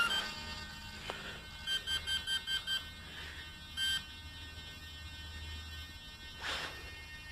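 Radio-control transmitter's speaker beeping: a quick run of six short beeps, then one more beep about a second later. A brief rustle near the end.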